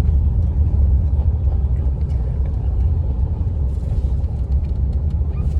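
Steady low rumble of a moving road vehicle, heard from on board.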